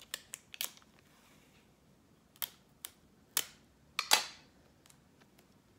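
A series of about eight sharp clicks and snaps at irregular intervals as small objects are handled, the loudest pair about four seconds in.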